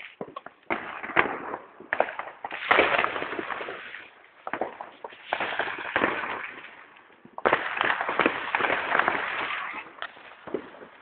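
Fireworks going off: a run of sharp pops, with two long stretches of dense crackling about three and eight seconds in.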